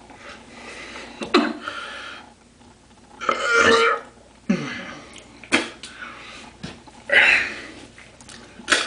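A man belching several times. The two loudest belches come about three and a half and seven seconds in, with shorter sounds between them.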